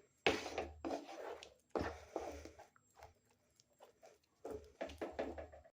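A spoon stirring a thick, sticky turmeric-ginger-jaggery halwa in ghee in a pan, in short irregular strokes and scrapes. The halwa is far into roasting, with the ghee separating.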